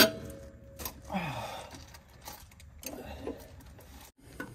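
Steel hand tools clanking and rattling as a wrench is worked on a truck's drive-axle shock absorber bolt. A sharp clank with a brief ring opens it, followed by scattered clicks, rattles and a short scrape.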